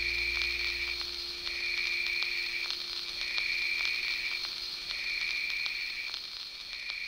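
Rhythmic trilling of an animal chorus: high-pitched calls about a second long, repeating roughly every second and a half. Under it, a low drone fades away within the first second, and a steady hum-like tone drops out near the end.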